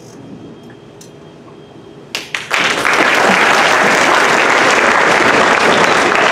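Theatre audience applauding: a few scattered claps about two seconds in, then full, loud applause from the whole house.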